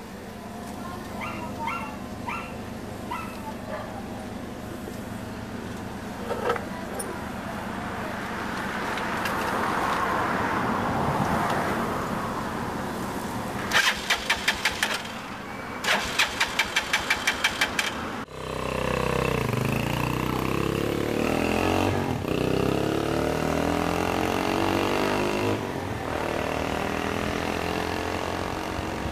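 A few short beeps, then two quick trains of sharp rapid pulses; about two-thirds in, the sound changes abruptly to car engines running and passing on a street.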